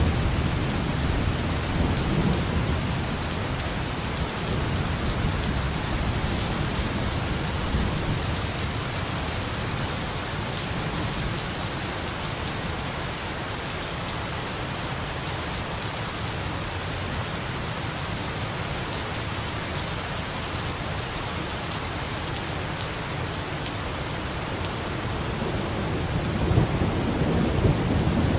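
Heavy rain falling steadily with a constant hiss. A low rumble of thunder at the start dies away after a few seconds and builds again near the end.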